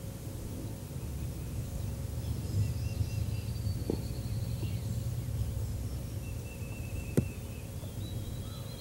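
Spring woodland ambience: faint, high songbird calls and trills over a steady low background rumble, with one sharp click about seven seconds in.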